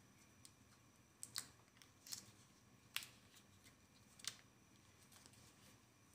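A chicken stock cube's wrapper being torn open and unfolded by hand: a handful of sharp, separate crinkles and clicks.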